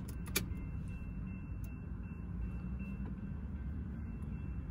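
Low, steady rumble of an approaching CSX train, heard from inside a parked car, with a few light clicks just after the start.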